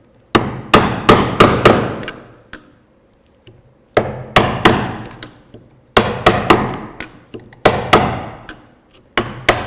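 Mortising chisel driven into wood by a mallet, chopping a mortise deeper: clusters of sharp blows, three to five in quick succession, with short pauses between them.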